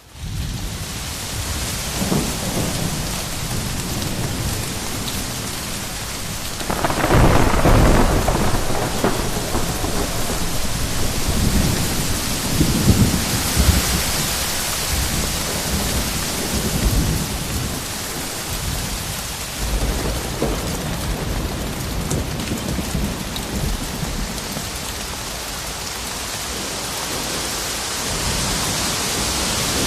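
Steady rain with wind gusting in low rumbles, the strongest coming about seven seconds in.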